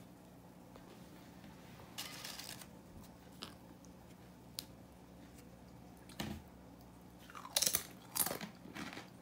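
Crisp tortilla chips crunching as they are bitten and chewed, in scattered bursts, with the loudest crunches near the end.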